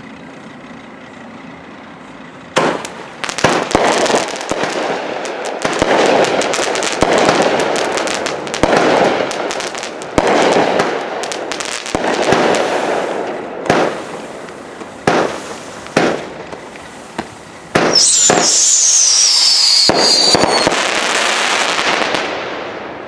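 World Class Fireworks Graffiti, a 200-gram 15-shot consumer firework cake, firing. About two and a half seconds in, a rapid string of loud launch and break bangs begins, with dense crackling. A few separate bangs follow, then a whistler gives a whistle falling in pitch over a long hiss that fades out.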